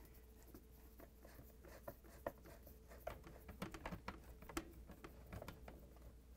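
Faint, scattered clicks and scrapes of a Phillips screwdriver turning out the screws that hold a dishwasher's blower motor assembly in the inner door panel.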